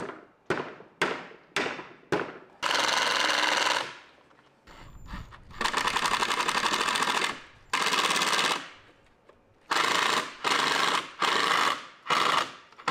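Five sharp hammer taps about half a second apart, then a cordless impact driver running in repeated bursts of rapid hammering, some over a second long and shorter ones near the end, as it drives fasteners through a heavy-duty steel drawer slide into a pine board.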